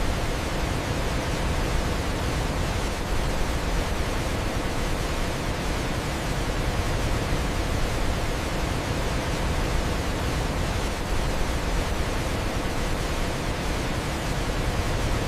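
Waterfall: a steady, dense rush of falling water, spread evenly from a deep rumble to a high hiss, with no change.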